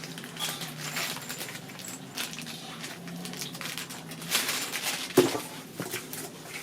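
Rustling and handling of packaging and flat-pack rack parts, with irregular clicks and a sharp knock about five seconds in.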